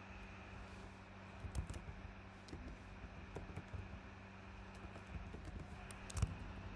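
Computer keyboard being typed on, faint irregular keystrokes as a file name is entered.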